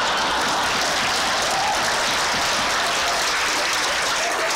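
Audience applauding, a steady wash of clapping.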